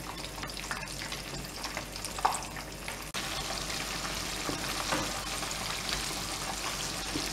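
Breaded chicken pieces deep-frying in hot oil in a pan: a steady sizzling hiss with scattered small crackles, a little louder and denser from about three seconds in.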